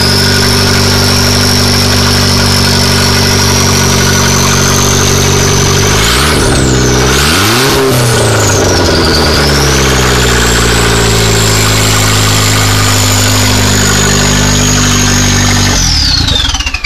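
A 2015 Chevy Cruze's 1.4-litre turbocharged four-cylinder is running with the downpipe off, the turbo exhausting straight out into the engine bay. It idles loudly with a high turbo whistle over it. About six seconds in it is revved twice, engine note and whistle rising and falling together, then it settles back to idle with the whistle higher; near the end the engine shuts off and the whistle drops away as the turbo spins down.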